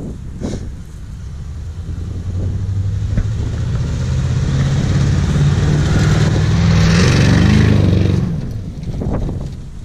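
Lincoln stretch limousine driving by: its engine grows louder as it approaches, loudest about seven to eight seconds in, then fades quickly as it passes.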